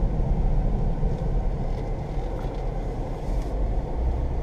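Steady low drone of road and drivetrain noise inside the cabin of a 2015 Jeep Grand Cherokee while driving, carrying the growl that the owner believes comes from a worn driver's side front wheel bearing.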